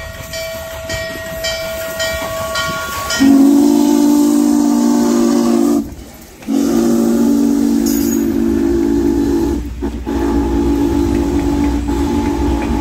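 Steam locomotive's bell ringing at about two strokes a second, then from about three seconds in its multi-note chime whistle blowing loud, long blasts, broken three times by short gaps. A steady rumble of the passing train runs underneath.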